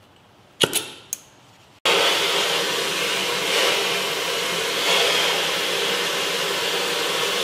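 Two sharp clicks, then from about two seconds in the steady hiss of an oxy-acetylene torch flame heating a truck's front coil spring so that it sags and lowers the front end.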